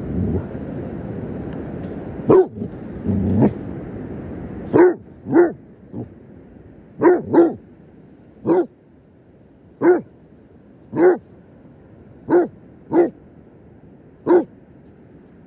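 A basset hound barking at a crab: about eleven short barks, singly or in pairs, roughly a second apart.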